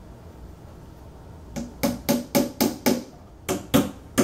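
Hammer driving a two-nail foot into the end of an IKEA Malm bed's particleboard leg panel: about a second and a half in, six quick strikes at about four a second, a short pause, then three more.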